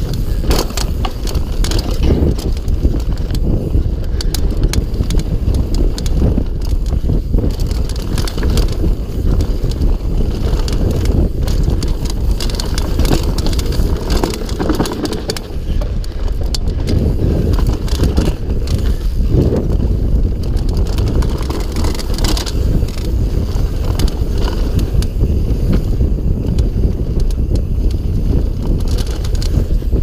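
GT Sanction full-suspension mountain bike ridden fast down a rough dirt and rock trail, heard close up from the rider's chest: a continuous low rumble of wind and tyres on the dirt, with constant rattling, clicks and knocks from the chain and frame over rocks and bumps.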